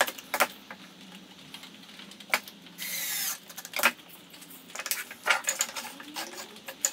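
Cordless drill-driver briefly driving a small screw, a short high whirr about three seconds in, among sharp clicks and knocks of the drill and a small wooden frame being handled and set down on a wooden workbench.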